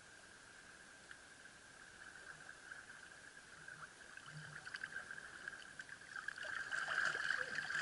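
Water splashing and sloshing as a spearfisher in a wetsuit swims up through a shallow rock pool, faint at first and louder and choppier as he comes up close to the microphone in the last few seconds.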